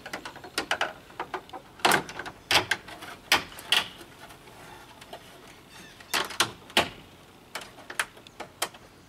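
Plastic grille pieces of a 2022 Ford Maverick being handled and pushed into place: a string of sharp plastic clicks and knocks in irregular clusters, with a quieter stretch around the middle.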